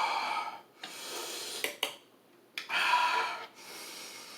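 A man breathing hard through the mouth in four heavy breaths about a second apart, the reaction to the burn of 2x spicy Samyang fire noodle sauce. Two short sharp clicks near the middle.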